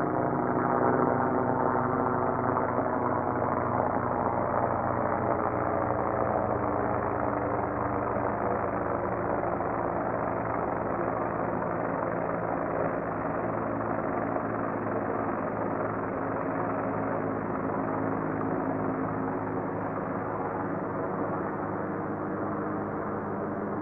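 Helicopter in flight: a steady rotor and engine sound with a stack of even tones, slowly growing fainter.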